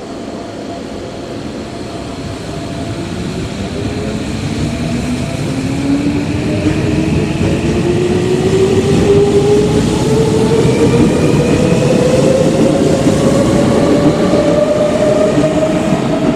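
Tobu 70000 series electric train pulling away from a station, its traction motors whining in several pitches that rise steadily as it accelerates. Wheel and running noise grow louder over the first ten seconds.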